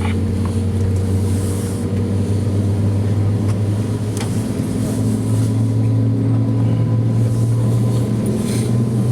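Steady low drone inside an Airbus A321's cabin on the ground, its pitch rising slightly about halfway through, with a faint steady higher whine over it.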